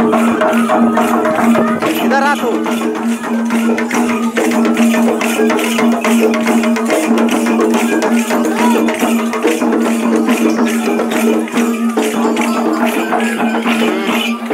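Folk dance music: fast, dense percussion with jingling strokes over a steady held drone tone that breaks off briefly near the end.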